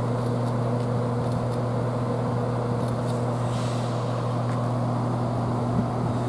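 Chiltern Railways Class 168 diesel multiple unit idling, its underfloor diesel engines giving a steady, even-pitched hum.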